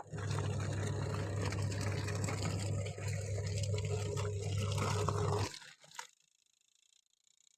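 Washing machine running, a steady motor hum under water churning and sloshing; it starts suddenly and stops abruptly about five and a half seconds in.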